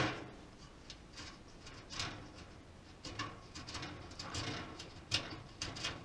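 A hand tap being turned in a freshly tapped hole in a metal PC case frame: faint metal scraping with scattered small clicks.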